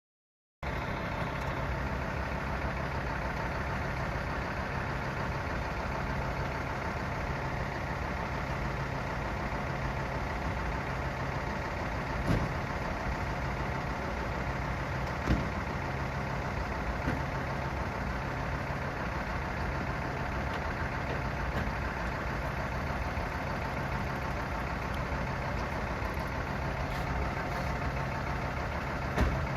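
Fire-service vehicle engine idling steadily, with a few short knocks: one about twelve seconds in, one about fifteen seconds in, and one near the end.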